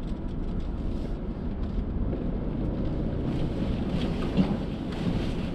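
Low, steady rumble of a Subaru SUV driving slowly over a rough grass-and-dirt track, heard from inside the cabin. A few light knocks come in toward the end.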